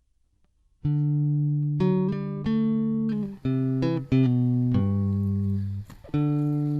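Music: a melody of plucked guitar notes, each struck and left to ring, starting about a second in.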